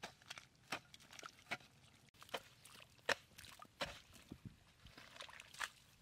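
A hoe chopping and scraping into wet mud and shallow muddy water, a series of irregular wet strikes and squelches.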